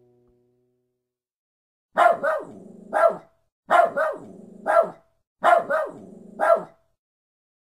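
A terrier barking in three bursts about 1.7 seconds apart. Each burst is two quick barks and then a third a moment later.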